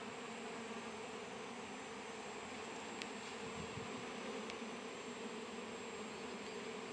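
Honey bees from an open hive buzzing in a steady, unbroken hum.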